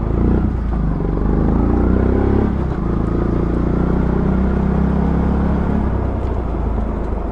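Yamaha FZ-S V1 single-cylinder engine running under way. Its pitch rises over the first two seconds or so, then holds steady as the bike cruises. The bike is ridden on a drive chain that has gone slack.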